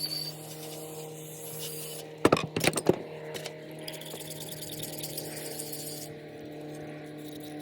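Small tools and parts being handled at a workbench: a quick cluster of sharp clicks and knocks about two seconds in, then a softer scraping, over a steady low hum.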